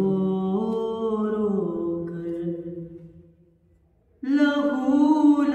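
A man chanting a nauha, the unaccompanied Shia lament, in long drawn-out notes that slide between pitches. The line fades away about three seconds in, and after a short pause the voice comes back in strongly near the end.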